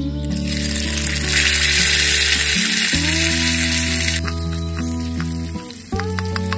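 Food sizzling in hot oil in a miniature pan over background music; the sizzle cuts off suddenly about four seconds in and a few light clicks follow.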